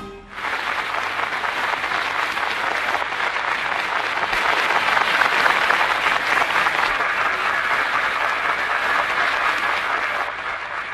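Studio audience applauding, starting as the song's last note stops, swelling to its loudest midway and dying away near the end.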